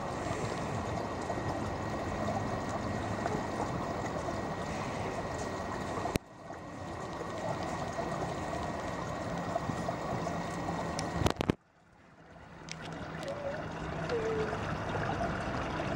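Steady rush of running water. It cuts out abruptly about six seconds in and again near twelve seconds, swelling back up each time.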